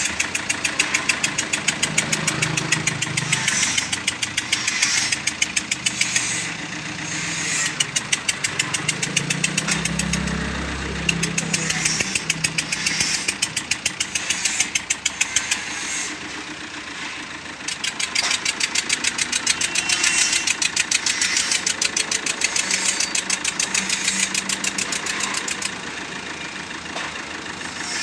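Tata car engine running at idle with a rapid, regular sharp knock, several knocks a second.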